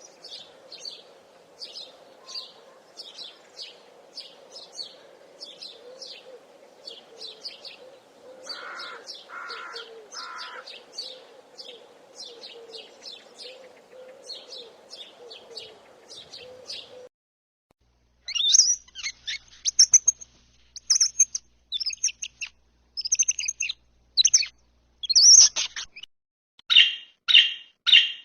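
Songbirds chirping: quick, repeated high notes, two or three a second, over a steady low background hum, with three lower, louder calls about nine seconds in. After about seventeen seconds the sound cuts off for a moment, then louder, more varied birdsong with rapid trills follows.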